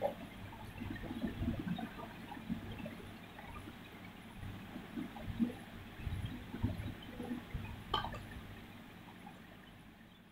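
A crayon rubbing on drawing paper in short colouring strokes, with soft, irregular knocks and a steady low hum underneath, and a single sharp tap about eight seconds in.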